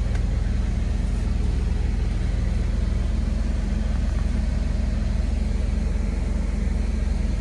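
Diesel engine of a semi truck idling steadily, heard from inside the sleeper cab as an even, low hum.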